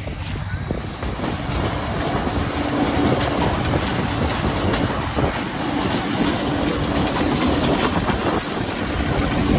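Heavy farm machinery running during a soybean harvest, a loud continuous mechanical din with a steady hum coming in about two seconds in.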